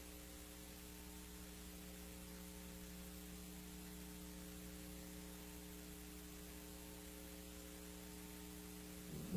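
Steady electrical hum with a faint hiss: mains hum on the recording, with no other sound standing out.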